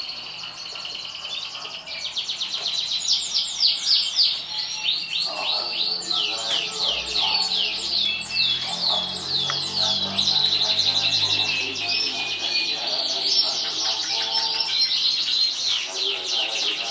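Domestic canary singing a long unbroken song of fast trills, the rapid repeated notes changing speed and pitch from phrase to phrase.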